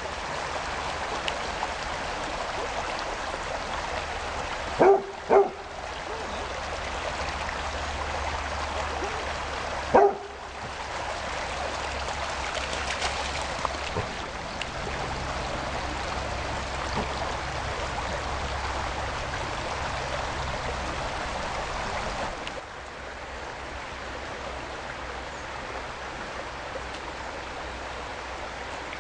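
Basset hound barking: two barks about five seconds in and a third about ten seconds in, over the steady rush of running stream water, which drops lower about two thirds of the way through.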